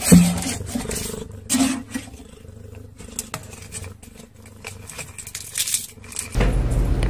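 Domestic cat growling in short, low calls, with scattered scratchy clicks. Near the end a steady low hum takes over.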